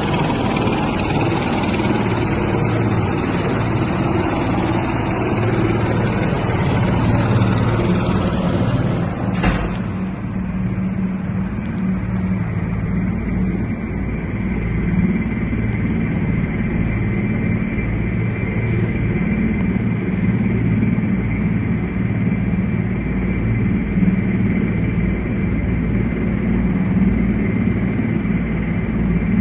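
Helicopter engine and rotor noise, a steady loud drone, with a sharp knock about a third of the way in after which the high hiss drops away and a steady high whine remains.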